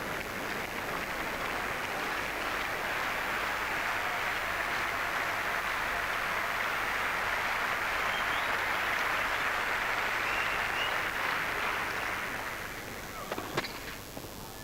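Tennis crowd applauding in a long, even wash that swells and then dies away. Near the end come a few sharp tennis-ball strikes off a racket as the next point starts.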